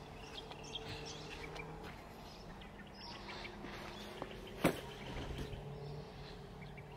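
Scattered bird chirps over a steady low hum, with one sharp knock about two-thirds of the way through.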